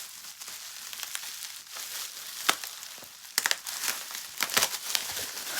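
Plastic packaging (a bag and bubble wrap) being handled and pulled open by hand: continuous crinkling with sharp crackles and clicks, busier from a little past halfway.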